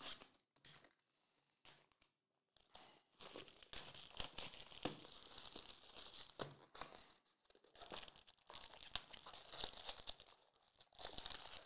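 Faint plastic packaging on a trading-card box being slit with a box cutter and torn open: a few small clicks at first, then steady crinkling and tearing of wrapper from about three seconds in, pausing briefly twice.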